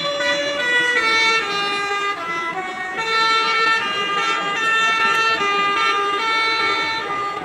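A bus's telolet horn, a Basuri multi-tone air horn, playing a tune of held notes that step up and down, each about half a second long.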